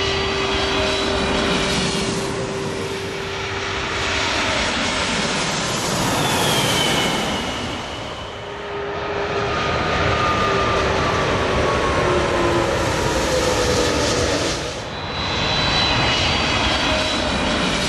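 Jet airliners on final approach passing low overhead one after another: a twin-jet freighter, a Boeing 787, then a four-engine Airbus A380. Each pass is a loud engine roar with a whine that falls in pitch as the aircraft goes over. The sound dips briefly about eight seconds in and again near the end as one aircraft gives way to the next.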